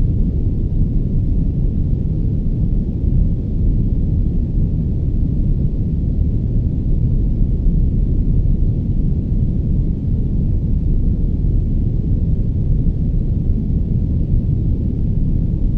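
Soft pink noise played as a sleep sound: a steady, even noise, heavy in the bass and with little hiss on top, like a deep, muffled rumble.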